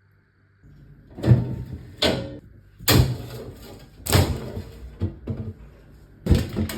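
A run of sharp knocks and bangs, roughly one a second, of household things being handled and set down.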